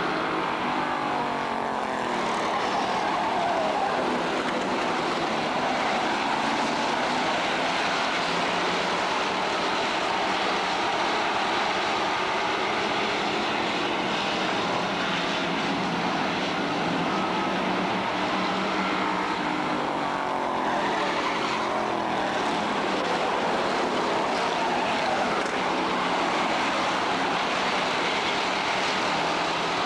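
A pack of street stock race cars racing on an oval, their engines running together in a dense, steady noise. The engine pitch sweeps down and up as cars pass by, most clearly in the first couple of seconds and again about twenty seconds in.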